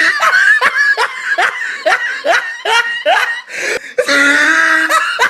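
A person laughing in a fast run of short, high, rising bursts, about three a second. About four seconds in it turns into one longer held high note.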